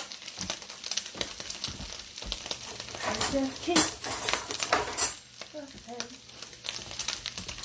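Sausage grease sizzling in a frying pan, with utensils scraping and clinking against the pan; two sharp clinks come about four and five seconds in.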